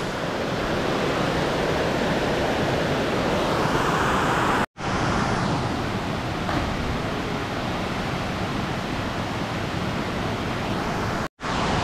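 Steady rush of a creek cascading over rocks, broken twice by a brief dropout to silence.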